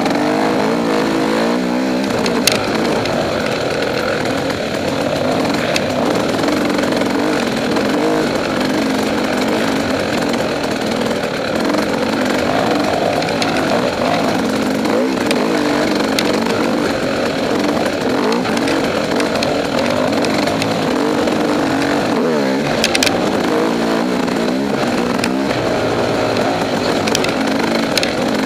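KTM 300XC two-stroke enduro bike's engine running under load on a wooded single-track trail, its revs rising and falling with the throttle. A few sharp knocks come through as the bike goes over bumps.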